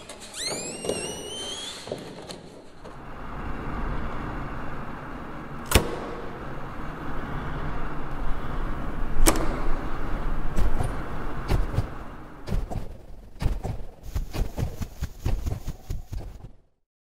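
Sound-effects soundtrack: several rising whistle-like glides, then a low rumble that builds. Two sharp cracks come a few seconds apart, followed by a dense, quickening run of clicks and knocks that cuts off suddenly.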